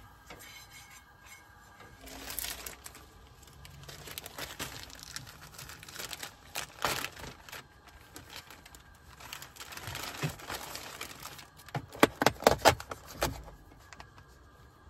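Plastic bag of tortilla wraps crinkling and rustling as it is handled and a wrap is pulled out, with a burst of sharp crackles near the end.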